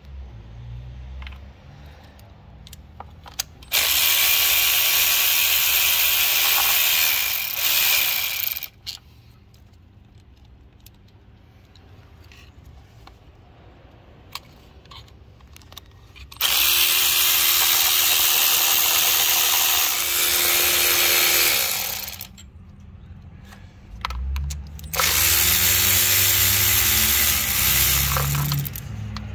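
A power tool runs in three steady whirring bursts of about four to five seconds each as it spins out the bolts holding down the top half of a diesel engine's plastic intake manifold. Small clicks of hand work on the engine are heard between the bursts.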